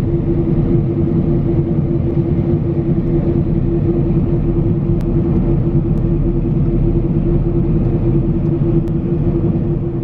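Claas Lexion combine harvester running steadily under load, heard from inside its cab: a constant low drone with a strong steady hum, while it harvests and unloads wheat.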